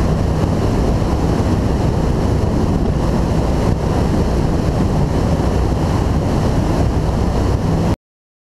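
2002 Formula 292 Fastech powerboat running at speed: a steady low engine drone under wind buffeting the microphone and water rushing past the hull. The sound cuts off abruptly near the end.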